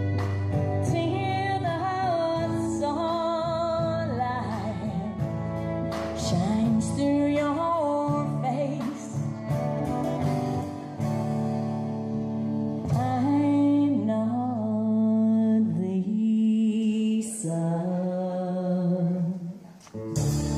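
Live country band playing: a woman singing lead over acoustic guitar, fiddle, electric bass and drums. The music drops away briefly just before the end.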